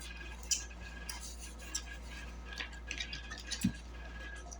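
Scattered small clicks and light rattles of food and dishes being handled close to the microphone, over a steady low hum.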